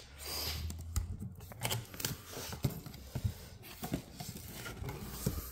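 Crinkling and rustling of plastic shrink-wrap on fireworks boxes being handled, with scattered small clicks and taps.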